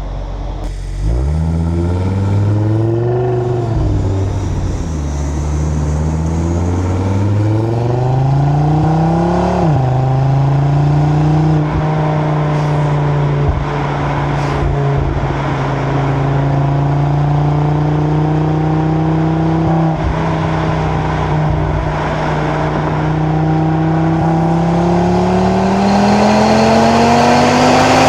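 2025 Audi RS3's stock turbocharged five-cylinder engine and exhaust, without flap control, accelerating hard in a pull. The engine note rises, falls back sharply at an upshift about four seconds in and again near ten seconds, then holds nearly level before climbing again near the end. Wind and road noise sit underneath.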